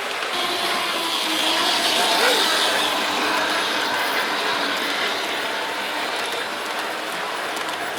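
1/45-scale OJ gauge model train, an EF64 locomotive pulling passenger and sleeper coaches, running along the track with a steady rattling clatter of wheels on rail, loudest about two seconds in.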